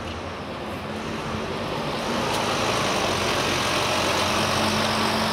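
Street traffic, with a large road vehicle's engine running close by and tyre noise that grows louder about two seconds in.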